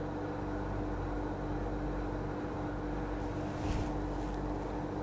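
Steady background hum with a constant low tone: room tone. A faint, brief sound comes about three and a half seconds in.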